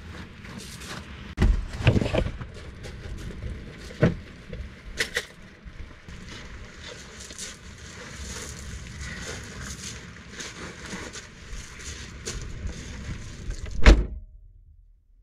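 Rustling, wind and several knocks as gear is handled at an open car boot. Near the end the car's tailgate is slammed shut with one loud thud.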